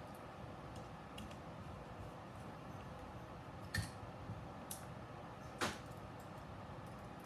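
A few light clicks and taps from a quadcopter's carbon-fibre frame and small tools being handled on a work mat, the loudest about two-thirds of the way in, over a steady low hiss.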